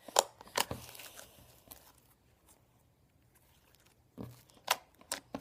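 Sticky slime being squeezed and pulled in the hands, giving a few sharp wet clicks and pops: two close together near the start, a quiet stretch, then three more near the end.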